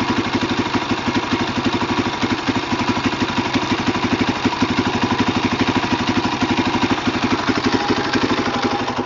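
Husqvarna SMR 610 supermoto's single-cylinder four-stroke engine idling steadily, a fast even run of exhaust pulses.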